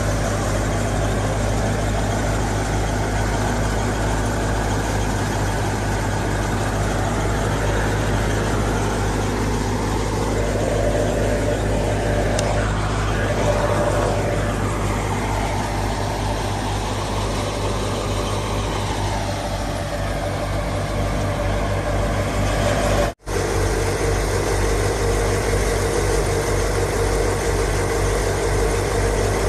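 Fiat 480 tractor's diesel engine running steadily, with some rise and fall in pitch midway. The sound cuts out for a split second about three-quarters of the way through.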